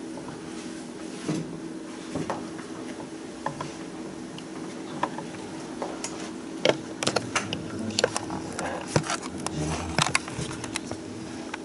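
Room tone of a small hall with a steady hum, and scattered small clicks and knocks that come more often in the second half.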